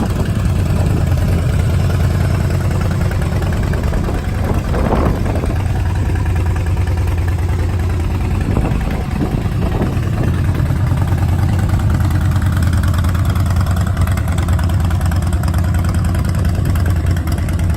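Harley-Davidson Dyna Street Bob's Twin Cam 96 V-twin idling through Vance & Hines Big Radius exhaust pipes, a steady low rumble. It is blipped briefly on the throttle about five seconds in and again around nine seconds.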